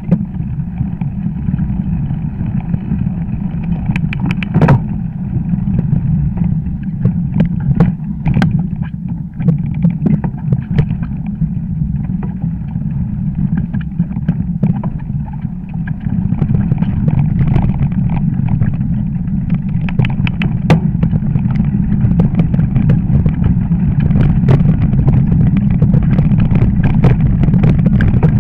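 Wind noise on a handlebar-mounted camera as a fat bike rolls downhill over snow, with scattered knocks and rattles from the bike over bumps. The noise grows louder a little past halfway as the bike gains speed.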